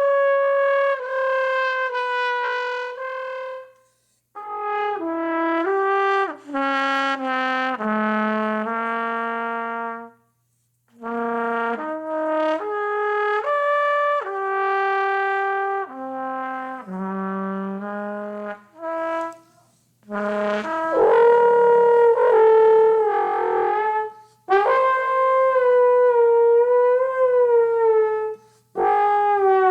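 Trumpet and trombone improvising short, free phrases of held and sliding notes, broken by brief pauses; the lower notes drop to trombone range near the middle.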